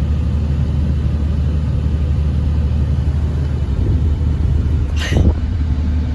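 Steady low road and engine rumble inside a moving car, with a brief sharper sound about five seconds in.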